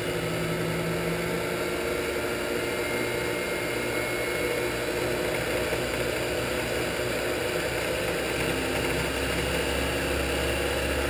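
Shopsmith 10ER headstock spinning under a Leeson 3/4 HP DC motor in mid-range, with a steady machine hum and whir. The pitch shifts slightly about eight or nine seconds in.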